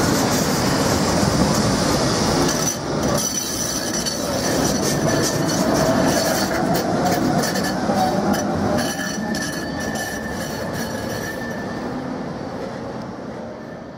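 Budapest tram passing close through a tight curve, wheels squealing on the rails over a steady rumble and rattle. The squeal comes as steady high tones through the middle, and the whole sound dies away toward the end.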